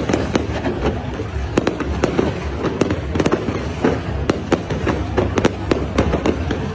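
Aerial fireworks display: sharp bangs and crackles, irregular and several a second, over a continuous low rumble of further bursts.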